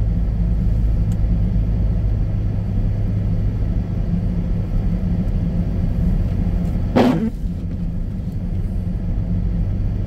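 Steady low rumble of a front-wheel-drive Jeep driving slowly along a snow-covered road, heard from inside the cabin. A single short, sharp sound cuts in about seven seconds in.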